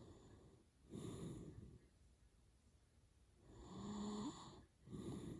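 A sleeping man snoring hard: three noisy breaths, the middle one the longest, with a steady low buzz that rises in pitch just before it stops.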